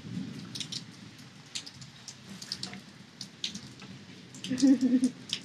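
Rainwater drops falling from a shaken tree's leaves, landing as scattered, irregular ticks. A short burst of voice comes near the end.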